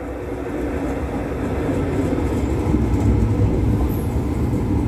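Tyne and Wear Metro train pulling into the platform. The steady rumble of the cars on the rails grows gradually louder as the train draws alongside.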